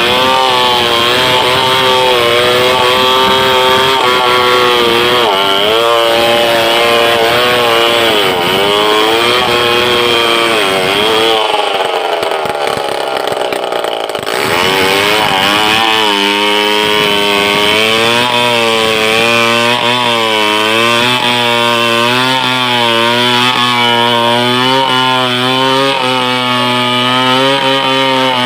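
Stihl 070 two-stroke chainsaw cutting a big log, its engine pitch wavering as the chain loads up in the wood. About twelve seconds in the revs sag and ease off briefly, then the saw picks up and runs on steadily.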